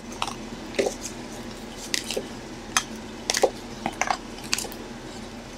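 Trading cards in hard plastic holders clicking and tapping against each other and the table as they are handled and set down: a dozen or so short, irregular clicks.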